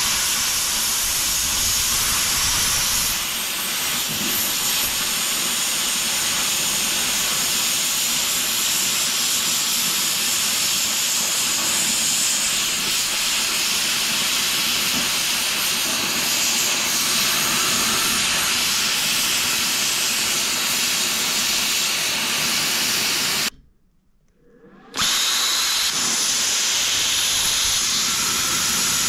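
Titanium 65 air plasma cutter cutting thick plate steel: a loud, steady hiss from the arc and air jet. It stops for about a second near the end, then starts again.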